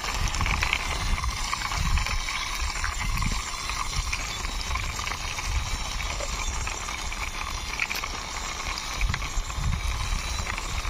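A small toy car pushed along by hand, its wheels rolling and rasping over the ground, with uneven low rumbling bumps.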